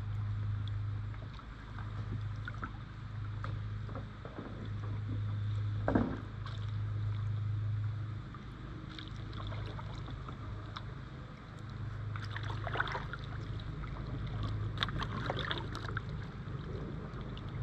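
Kayak paddling on calm water: the paddle blades dip, swish and drip, with a sharp knock about six seconds in, under a low steady hum that fades in and out.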